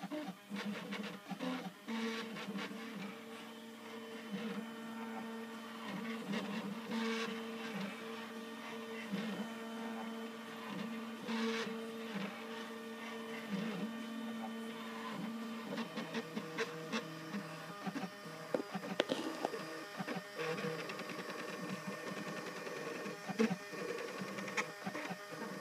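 Home-built Ultimaker 3D printer printing, its stepper motors sounding in steady tones that shift pitch as the head changes moves. Scattered clicks run throughout. About two-thirds of the way through the tones break up into quicker, choppier notes.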